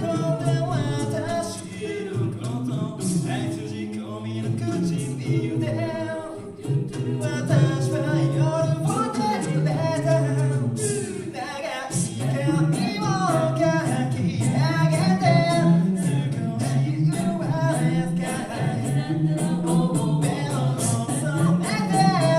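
A cappella vocal group singing a pop-rock song: a lead melody over a sung bass line and backing harmonies, with sharp ticks running through.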